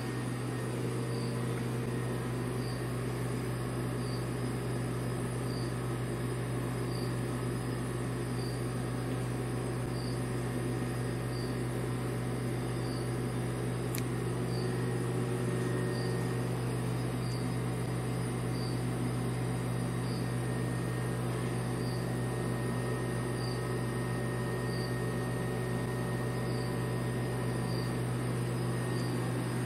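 A steady low hum, with a faint high insect chirp repeating about every second and a half over it.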